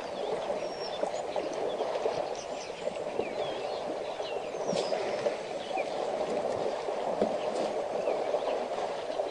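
Elephants wallowing in a muddy waterhole make a steady sloshing of mud and water, while birds chirp in many short, quick calls over it.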